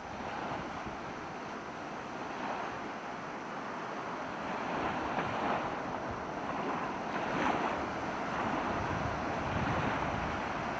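Sea surf washing ashore, with wind on the microphone; the rush of the waves swells up every couple of seconds.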